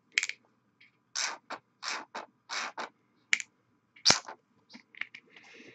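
Nearly empty Reaper Master Series paint dropper bottle squeezed over and over, spitting and sputtering air and paint in about a dozen short irregular bursts, with a brief hiss near the end. It is the sign that the bottle has almost run out.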